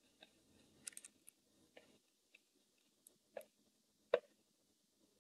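Faint, scattered keystrokes on a computer keyboard: about ten short clicks at an uneven pace, the sharpest a little after four seconds in.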